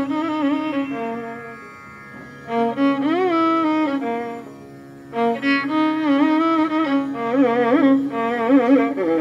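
Instrumental background music: a sliding, heavily ornamented melody over a steady low drone, easing off briefly twice before picking up again.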